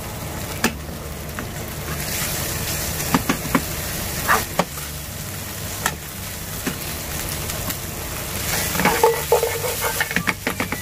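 Ground meat sizzling with sweet bean sauce and chili bean paste in a nonstick frying pan while a metal ladle stirs it, the ladle clicking and scraping against the pan now and then, most busily near the end. This is the sauce being fried to bring out its aroma.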